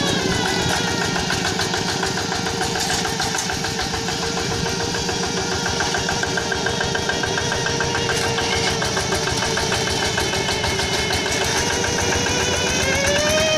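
Rice-field tractor engine running steadily with a pronounced high whine above it. The whine and engine pitch drop at the start, hold low, then climb again near the end as the engine speed changes.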